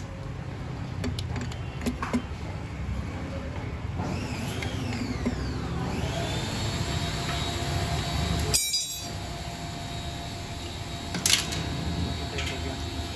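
Steady workshop hum with a few light clicks of metal engine parts being handled and fitted during motorcycle engine reassembly.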